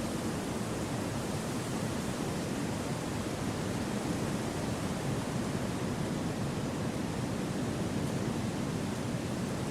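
Steady wind noise: an even rush without gusts or any distinct events.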